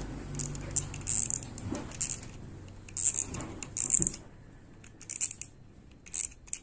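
Front drag knob of a JK Series 4000 spinning reel being unscrewed by hand, its drag clicker giving short bursts of sharp metallic clicks with each twist. The clicker is fairly shrill.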